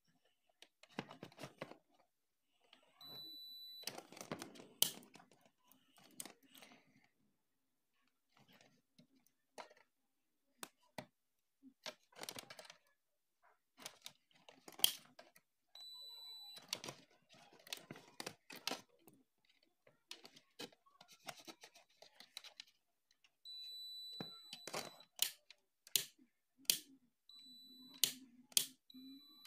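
Digital multimeter's continuity buzzer giving four short, steady, high-pitched beeps as the test probes find a closed circuit on the mixer grinder's wiring, among clicks and rustles from handling the probes and wires.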